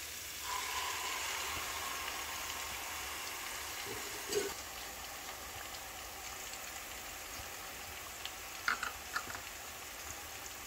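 Hot oil with chopped onion sizzling in a pot, swelling about half a second in as the spice paste of ginger, turmeric, chilli, coriander and cumin goes into the oil. A few light knocks sound about four seconds in and again near nine seconds.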